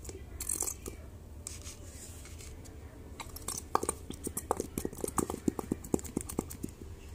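Squeeze bottle squirting a thick clear liquid into a plastic cup. Soft clicks at first, then from about halfway a quick run of short wet pops and squelches, about four a second, as the bottle sputters.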